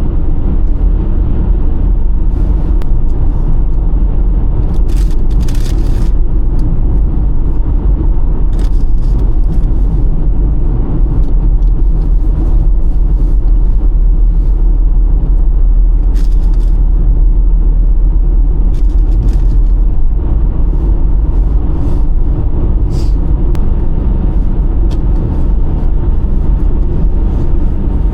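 Road and engine noise heard inside a moving camper van's cabin: a steady low rumble with scattered short clicks.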